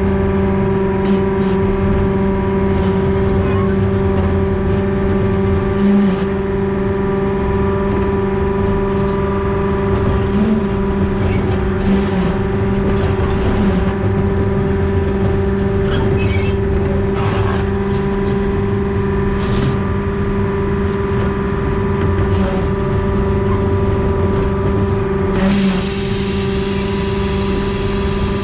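Diesel-hydraulic narrow-gauge locomotive running steadily, a constant droning hum with scattered clicks and knocks. A high hiss comes in near the end.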